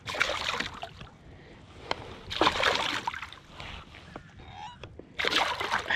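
Water splashing three times, about two and a half seconds apart, as a hooked hybrid striped bass thrashes at the surface beside the kayak.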